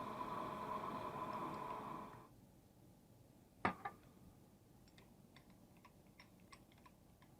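Manual machine tool (lathe or milling machine) running with a steady hum that stops about two seconds in. A sharp metallic knock follows, then a scatter of light clicks.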